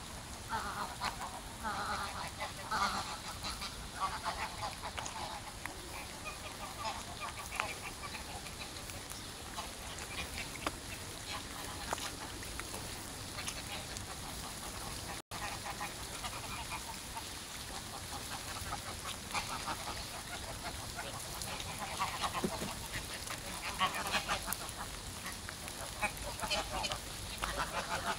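A flock of greylag geese honking and calling, with the calls busiest at the start and again near the end, over a steady background hiss.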